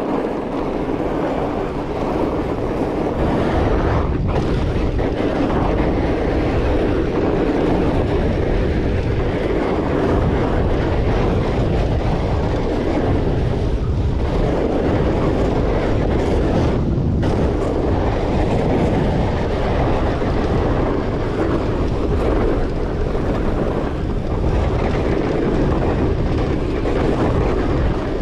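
Steady wind noise on the microphone mixed with the rolling noise of a Rocky Mountain Blizzard 20 fat bike's tyres on a trail during a ride. The noise briefly thins twice, about four seconds in and again a little past halfway.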